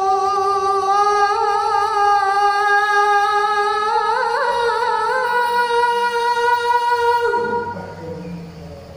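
A boy muezzin chanting the adhan, holding one long drawn-out note of 'Muhammadan rasulullah' with a wavering ornament about four seconds in. The note ends a little after seven seconds and the sound trails off.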